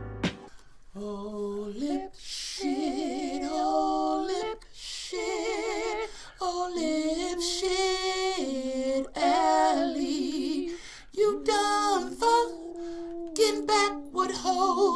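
A man singing in a high voice, holding long wavering notes with strong vibrato and short breaks between phrases: a mocking sung insult.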